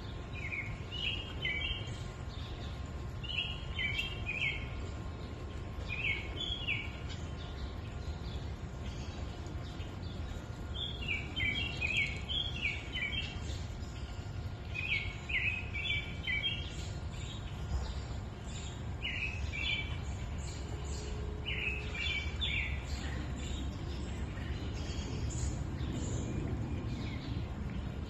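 A creek flowing with a steady low rush, while a songbird sings short phrases of quick high notes every few seconds.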